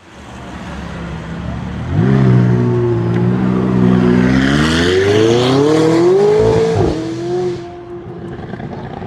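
McLaren supercar accelerating hard. The engine note climbs steadily for about five seconds, drops suddenly near the end, then carries on at a steadier, lower note.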